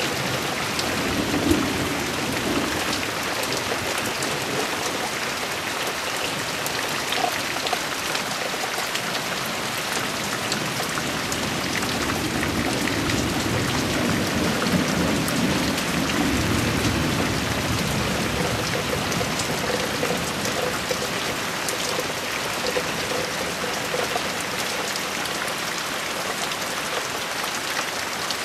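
Heavy rain falling steadily in a thunderstorm, an even hiss. Low thunder rumbles in about a second in and again for several seconds around the middle.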